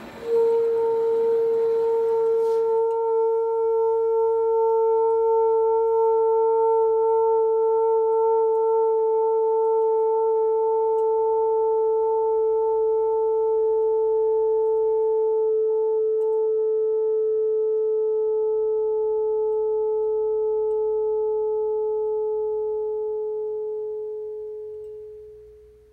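Mini Rijke tube singing: the glass tube, its gauze heated red-hot, gives one loud steady pure tone with fainter overtones. The tone starts suddenly, holds for over twenty seconds and fades away near the end as the gauze cools.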